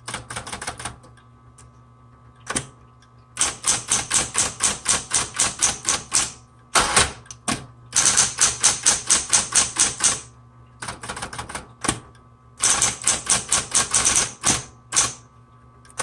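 Smith Corona Coronet Automatic 12 electric typewriter typing in quick runs of key strikes, about six a second, with short pauses between runs, over the steady hum of its running motor. A heavier, deeper clunk comes about seven seconds in.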